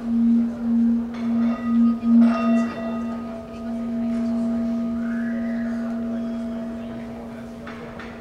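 Live percussion: a resonant metal instrument sounding one deep ringing tone that wavers in loudness about twice a second. Two lighter strikes about one and two seconds in add higher ringing overtones, then the tone rings on evenly and slowly fades.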